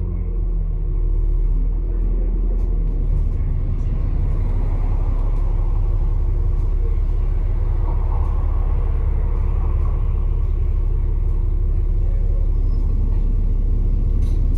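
Bus engine and road noise heard from inside the moving bus: a steady low rumble.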